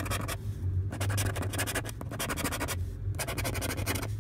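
Scratch-off lottery ticket being scratched with the edge of a scratching tool, scraping the latex coating off the play spots in several short runs of rasping strokes with brief pauses between them.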